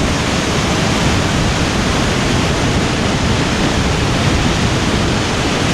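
Loud, steady rushing of a waterfall cascading over rocks close by, a constant noise with no breaks.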